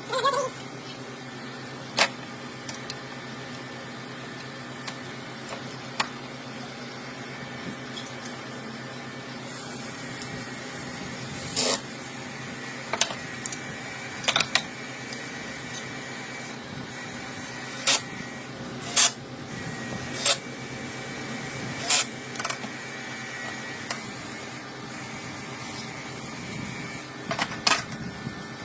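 Irregular clicks and knocks of hand tools and metal parts being handled during air-conditioner servicing, about ten of them, over a steady mechanical hum.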